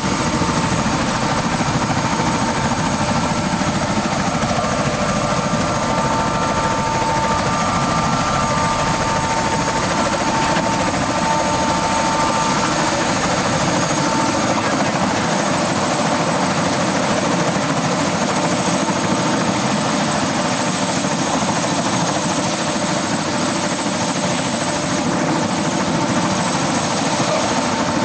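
Helicopter running steadily on the pad, heard from its cabin at the open door: a loud, even rushing of engine and rotor with a constant high whine over it.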